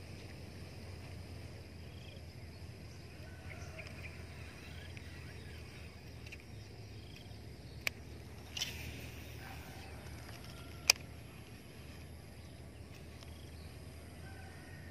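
Rural outdoor ambience: a low steady rumble with faint scattered bird chirps, broken by two sharp clicks about eight and eleven seconds in, the second the loudest, with a brief rustle between them.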